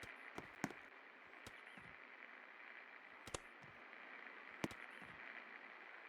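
56-inch Electro Wind industrial ceiling fan running: a faint steady whir with sharp clicks now and then, three of them louder.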